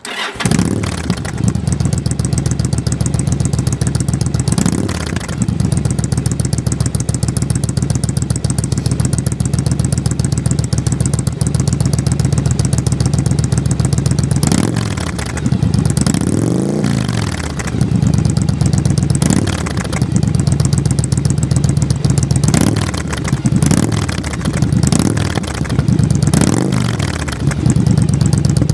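Yamaha Drag Star 1100's air-cooled V-twin running at idle through its exhaust, blipped repeatedly: one rev about five seconds in, then a cluster of quick revs rising and falling back to idle through the second half.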